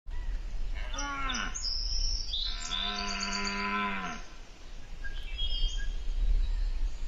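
Deer calling: a short call falling in pitch about a second in, then a long, steady low call of about a second and a half. Birds chirp in the background over a steady low rumble.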